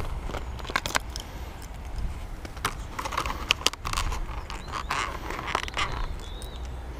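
A clear plastic clamshell lure pack being pulled open and handled, with irregular crackles and sharp clicks. A steady low wind rumble sits on the microphone underneath.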